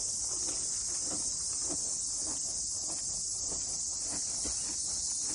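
Steady high-pitched chorus of insects shrilling without a break, with faint soft knocks about twice a second underneath.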